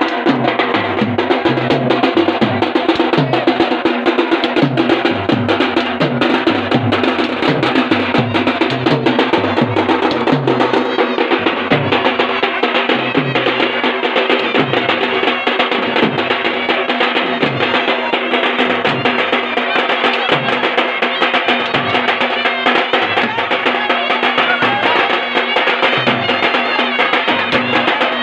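Dhol drums played fast and hard, one of them a steel-shelled dhol. A rapid beat runs over deep bass strokes that slide down in pitch, roughly one or two a second, with steady sustained tones behind.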